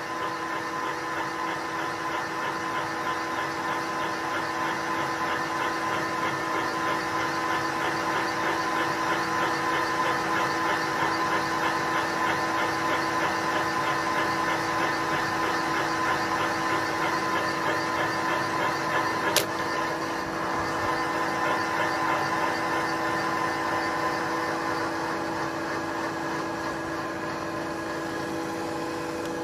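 Milling machine spindle running steadily with a piloted cutter on power quill feed, cutting a valve seat insert recess into a cast-iron A-series cylinder head; a steady motor and gear hum with one sharp click about two-thirds of the way through.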